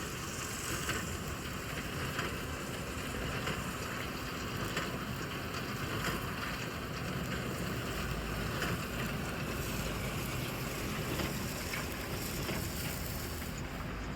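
Steady running noise of a tractor and straw baler at work in the field, with no clear changes.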